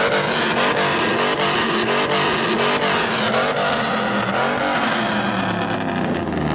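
A lifted pickup truck's loud exhaust, its engine running close by with a pitch that wavers up and down slightly.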